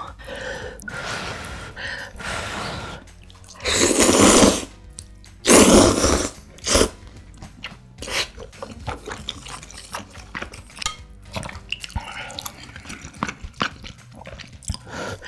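Wet noodles slurped into the mouth in two long, loud slurps about four and six seconds in, with a short third one just after. Soft wet chewing and small mouth clicks follow.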